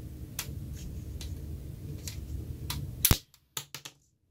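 Spring-loaded missile launcher on a M.A.S.K. Detonator toy firing with one sharp snap about three seconds in, after a few faint clicks. The sound then nearly cuts out, with two brief clicks.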